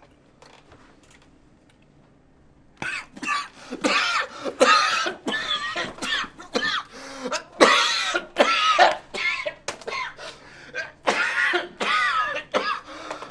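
A man coughing in a long run of fits with throat clearing, starting about three seconds in after a quieter stretch.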